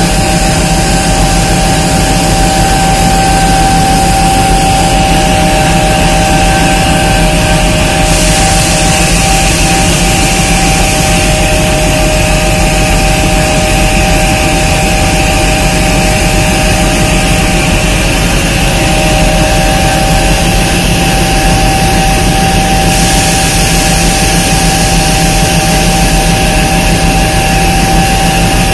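Indian Railways ALCO-type diesel locomotive engine running loud and steady at a standstill, with a continuous high whine over the rumble.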